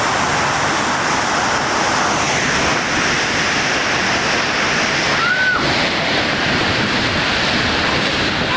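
Heavy rain pouring down in strong wind: a loud, steady rush. About five seconds in there is one short, high squeak.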